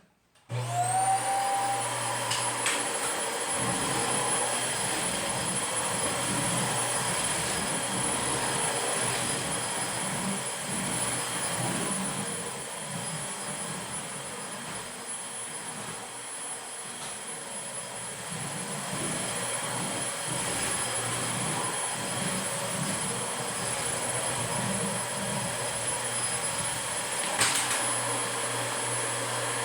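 Dyson DC25 Animal upright vacuum cleaner switched on about half a second in, its motor spinning up with a rising whine, then running steadily and loud with a high whine. A single sharp knock near the end.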